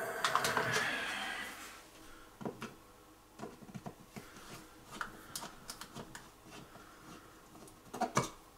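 Screwdriver clicking and scraping against the screws and metal frame of a flush-mounted wall light switch as it is being unscrewed. It opens with a burst of rustling and clatter, then irregular small clicks, with a quick cluster of louder clicks near the end.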